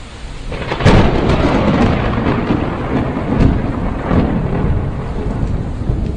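Thunderstorm: a sharp thunderclap a little under a second in, then rolling thunder over steady rain.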